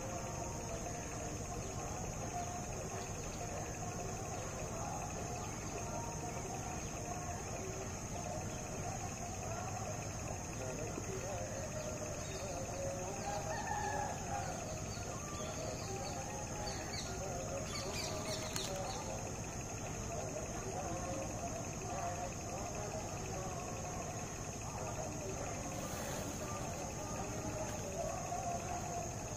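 Outdoor ambience: a steady high-pitched insect drone with faint wavering calls underneath, and two brief faint knocks, one a little past halfway and one near the end.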